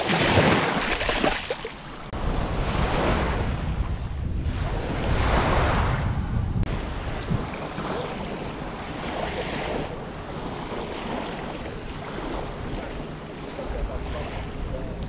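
Ocean surf breaking on the beach, a rushing wash that swells and fades every few seconds, with wind rumbling on the microphone.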